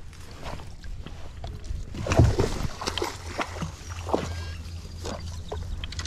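Irregular knocks and bumps on a plastic kayak hull with water sloshing as a dog clambers off the bow into the reeds; the loudest thump comes about two seconds in.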